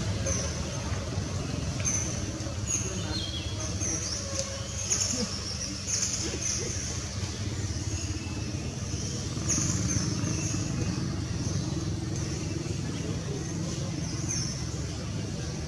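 Steady low rumble of motor traffic, with short high chirps scattered through.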